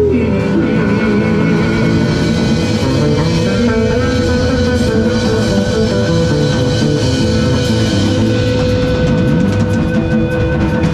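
Live rock band playing loud: electric and acoustic guitars, bass and drum kit, with one steady note held through.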